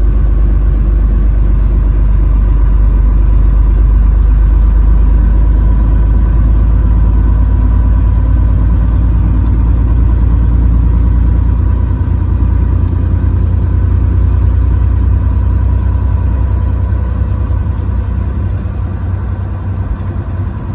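Steady low rumble of a truck driving along the interstate, engine and road noise together, growing quieter over the last few seconds.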